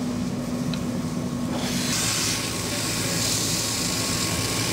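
Steady low engine rumble, with a hiss of water spray from a fire hose on the burnt RV joining about two seconds in and continuing.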